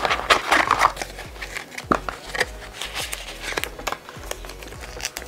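Earbud packaging handled by hand: plastic film crinkling in the first second, then scattered short clicks and taps of cardboard and plastic parts.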